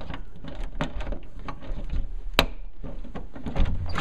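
An interior door being unlatched and pushed open: a run of irregular clicks and knocks, with one sharp click about two and a half seconds in the loudest, over the rustle of a handheld camera.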